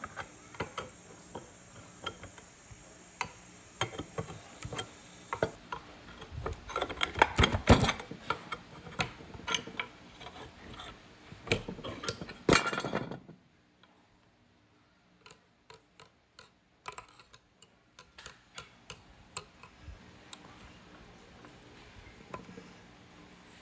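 Scattered metallic clicks and taps as the corroded housing of an old electric air blower is handled and probed with a metal rod, with denser, louder bursts of scraping and knocking in the first half and sparser ticks after a short gap of near silence.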